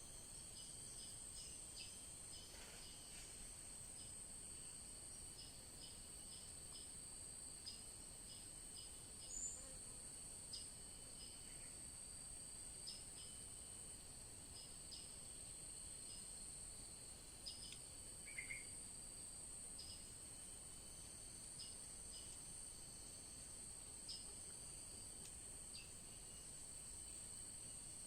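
Steady high-pitched drone of insects, with short high bird chirps repeated every second or so and a couple of louder single calls.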